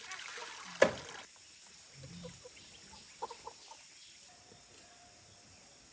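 A sharp knock about a second in, then hens clucking softly a few times in short calls.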